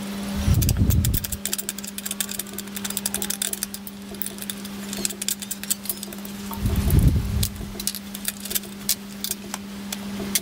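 Small metal clicks and taps as a steel switch bracket is bolted to a faceting machine's mast and its arm is moved to check the fit, over a steady electrical hum. Two low thuds come, about a second in and again about seven seconds in.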